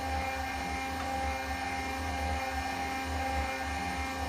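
Milling machine spindle running steadily with a low hum and a few steady whining tones, as a small drill cuts into the end of a steel shaft.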